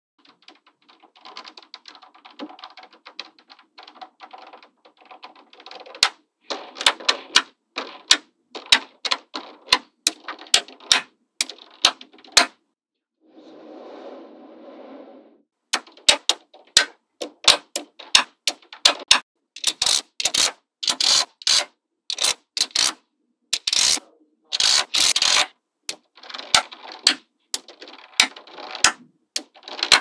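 Small magnetic balls clicking as they snap onto a block of magnetic balls, in quick irregular runs of sharp clicks that grow denser and louder in the last third. Softer stretches of dense clatter come early and about halfway through.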